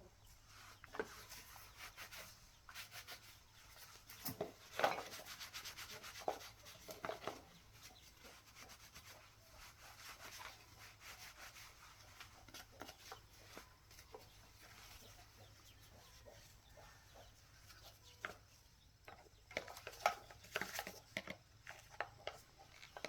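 Hand work on an electric motor's parts: intermittent rubbing and scraping with scattered light clicks and taps, busiest about four seconds in and again near the end.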